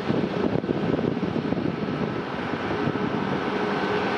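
Beech 1900C's twin Pratt & Whitney PT6A turboprop engines running on the runway for takeoff, heard from afar as a steady rushing drone. A thin, high whine joins about three seconds in.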